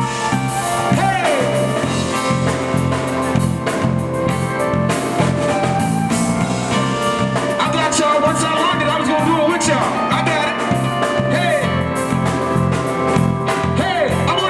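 Live zydeco band playing a danceable groove with a steady beat.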